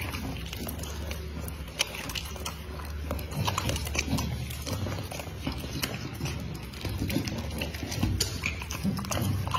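A bully-type dog chewing and licking raw meat held out by hand: wet smacking and chewing with many small clicks throughout.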